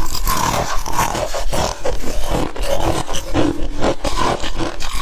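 Freezer ice being bitten and crunched between the teeth close to the microphone: a dense run of sharp, irregular cracks.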